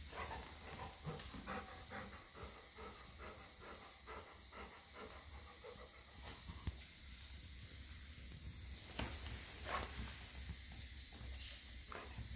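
Golden retriever panting excitedly, about three quick breaths a second for the first half, then quieter, broken by a few sharp ticks.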